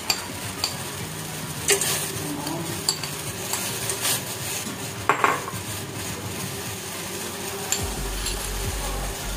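Spices and a spoon clicking and clinking in a cooking pan of water, a handful of sharp separate knocks over a steady hiss. A low hum comes in near the end.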